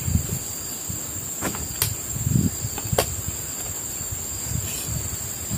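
Insects droning steadily in one high thin tone, with a few sharp clicks of spoons on plates between about one and a half and three seconds in.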